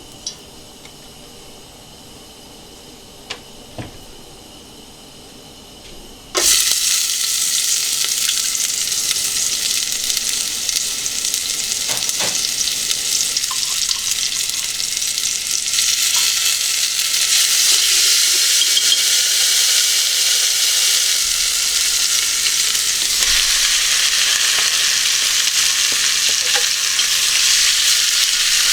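Food sizzling in a hot pan, starting suddenly about six seconds in and going on steadily. Before that, only a few faint clicks over room tone.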